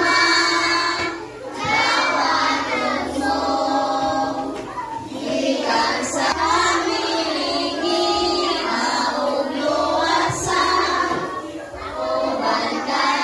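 A group of children singing a devotional song together, holding each note for about a second before moving to the next.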